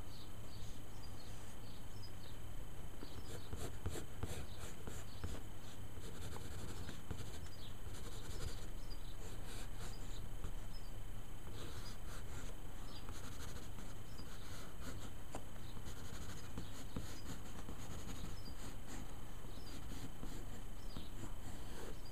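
Graphite pencil scratching across paper in short sketching strokes that come in clusters with brief pauses, over a steady low background hum.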